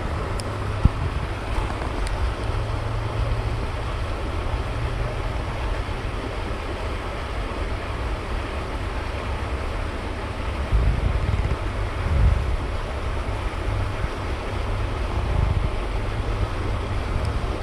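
Wind buffeting the microphone: a steady low rumble with stronger gusts about eleven and fifteen seconds in, over an even background hiss.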